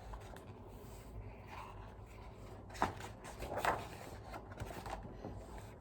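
Soft paper rustles of a picture-book page being turned, two brief ones a little under a second apart near the middle, over a faint steady low hum.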